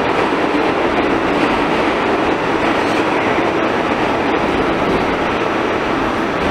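R46 subway car running through an underground tunnel, heard from inside the car: a loud, steady rumble and rush of steel wheels on the rails.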